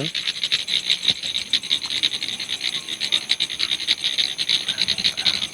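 A dense chorus of frogs calling in rapid, overlapping clicking pulses, with a steady high insect trill behind it.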